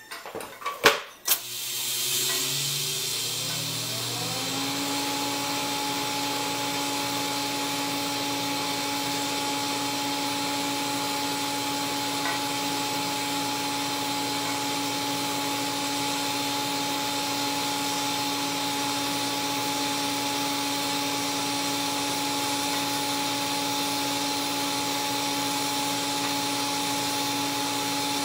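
TIG welding arc on a carbon steel pipe root pass using the laywire technique: a few sharp clicks about a second in as the arc strikes, then a steady hiss with a hum that rises in pitch over a few seconds and then holds steady.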